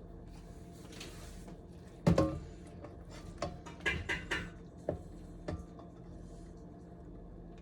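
Pot and utensil knocks and clinks during macaroni and cheese preparation: one solid knock about two seconds in, then a quick run of lighter clinks and taps, with a couple more after.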